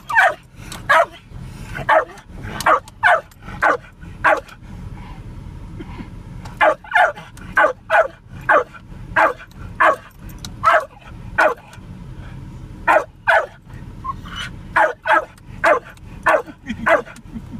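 Jack Russell terrier barking in quick runs of short, sharp barks, about two a second, breaking off for a couple of seconds now and then, over a low steady rumble.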